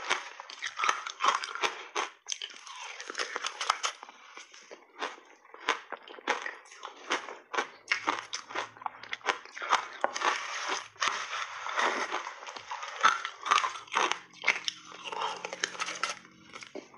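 Shaved ice coated in milk powder being bitten and chewed close to a clip-on microphone: a dense, irregular run of sharp crunches and crackles.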